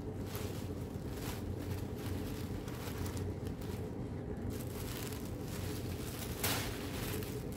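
Soft rustling of tissue paper as a wrapped package is handled and lowered, over a steady low room hum, with one louder brief rustle about six and a half seconds in.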